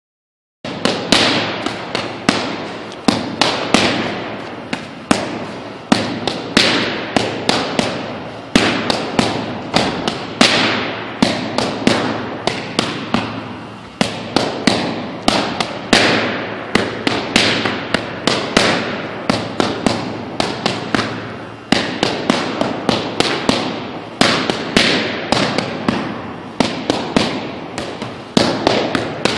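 Boxing gloves striking focus mitts in quick runs of punches, each hit a sharp pop with a short echo after it.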